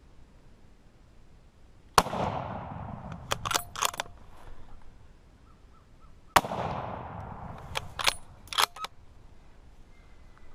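Two rifle shots from a Savage 110 .30-06 bolt-action rifle, about four and a half seconds apart, each echoing for about a second. A second or two after each shot comes a quick run of sharp metallic clicks as the bolt is worked to chamber the next round.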